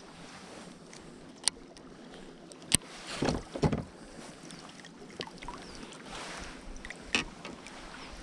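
Water lapping around an inflatable pontoon boat with light wind on the microphone, broken by three sharp clicks and a short rustle about three seconds in as a baitcasting rod and reel are handled.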